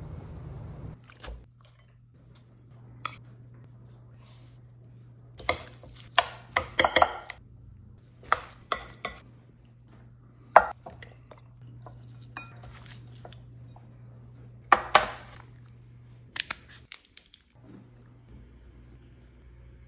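Kitchen prep clatter: sharp clinks and knocks of a glass bowl, utensils and a metal sheet pan being handled on a counter, coming in scattered quick bunches. A low steady hum runs underneath.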